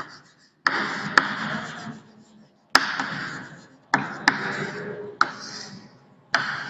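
Chalk writing on a chalkboard: about half a dozen strokes, each opening with a sharp tap of the chalk and trailing off in a scratchy rasp, with short pauses between them.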